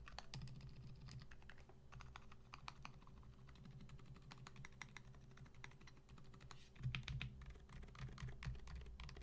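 Fast, continuous typing on an NK65 mechanical keyboard fitted with Haimu Heartbeat silent linear switches: a quiet, rapid patter of damped keystrokes, a little louder for a flurry about seven seconds in.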